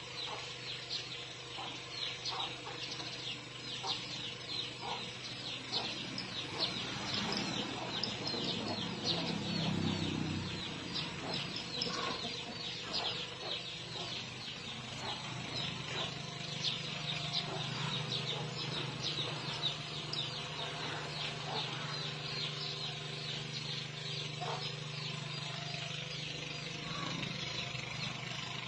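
Farmyard chickens clucking among constant rapid high chirping of birds, with a low steady hum coming in about halfway through.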